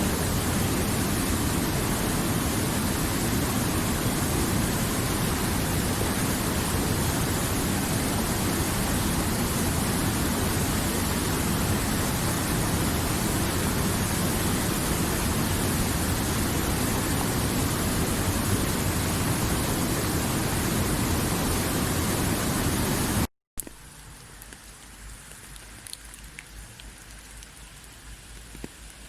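A steady, loud rush of water. About 23 seconds in it cuts off abruptly and switches to much quieter rain with a few scattered drips.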